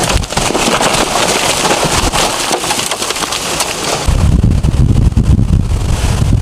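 Hurricane storm noise: a dense crackling patter, like heavy wind-driven rain pelting. About four seconds in it switches abruptly to a loud low rumble of wind buffeting the microphone.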